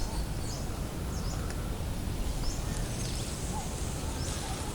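Birds chirping, short high calls scattered throughout, over a steady low rumble.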